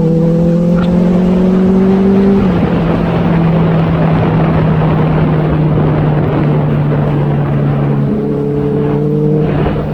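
Inline-four motorcycle engine running under way, with wind rushing past. The revs climb slowly, then drop about two and a half seconds in as if on a gear change, hold steady, and climb and drop again near the end.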